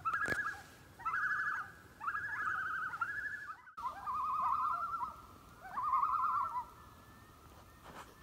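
Common loon tremolo calls: short runs of a rapidly wavering, laughing call repeated several times, a little lower in pitch after a brief break about four seconds in.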